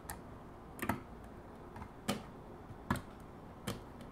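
Short sharp metal clicks, about five of them most of a second apart, as two short flathead screwdrivers press a snap ring down into its groove, working it around a bit at a time.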